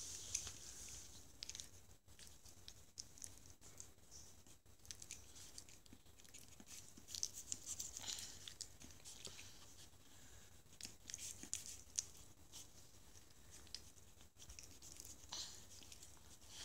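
French Bulldog puppy licking and chewing on a baby's dummy: faint, scattered small clicks and smacks, thickest in a couple of short flurries.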